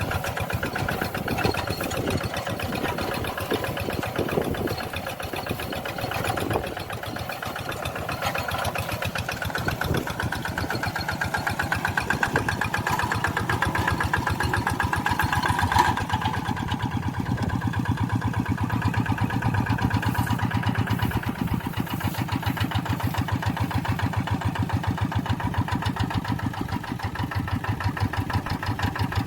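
Tractor engine running steadily with a rapid even beat; a little over halfway its note changes, the higher sound dropping away and a lower hum coming to the fore.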